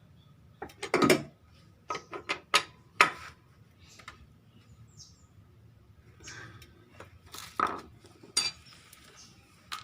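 Irregular clicks, clinks and knocks of a Honda Vario scooter's plastic radiator fan cover being handled and fitted back over the fan, with sharper knocks about one, three and eight seconds in.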